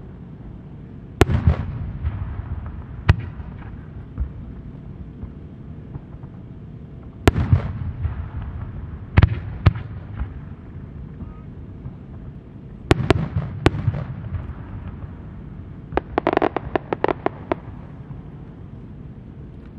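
Aerial fireworks shells bursting: a series of sharp bangs a few seconds apart, each followed by a low rumbling echo, then a quick run of small crackling pops about 16 seconds in.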